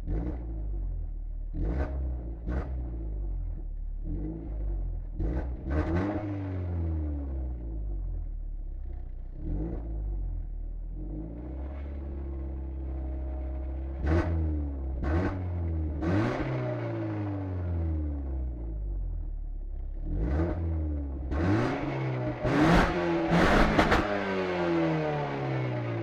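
Renault Laguna 2.0 16V four-cylinder petrol engine on its stock exhaust, revved in about a dozen quick throttle blips that rise sharply and fall back to a steady idle between them. The highest and loudest revs come in a cluster about three-quarters of the way through.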